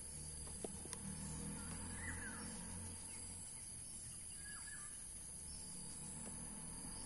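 Outdoor ambience: a steady high-pitched insect drone with a low background rumble, and a few short bird chirps about two and four and a half seconds in.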